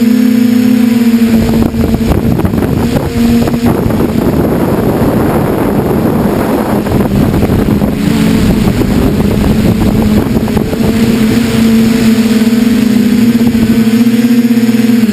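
Camera drone's electric motors and propellers buzzing with a steady hum, heard from the drone itself. From about a second and a half in, a rough rushing wind noise swamps the hum while the drone descends, and the steady hum comes back clear near the end as it hovers.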